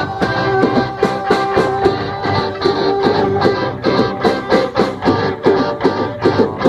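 Live rock band playing an instrumental passage with guitar over a steady drum beat.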